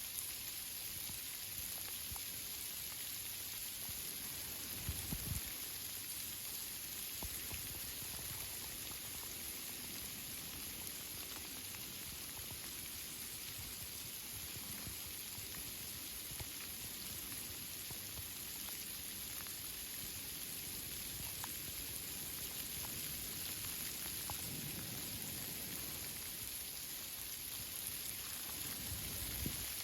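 Steady rain falling on tree foliage, a constant patter with scattered individual drops. There is a brief low thump about five seconds in and another near the end.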